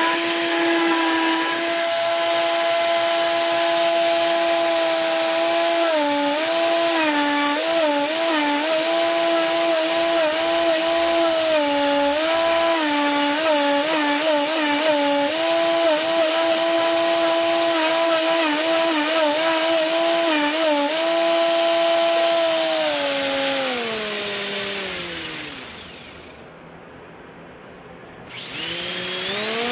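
Small RC helicopter's electric drive train, a Walkera V120D02, spinning the tail rotor under test with a steady whine and high hiss. The pitch dips and wobbles again and again as the speed changes. About 24 seconds in the whine sinks away as it spins down almost to a stop, then rises again as it spins back up near the end.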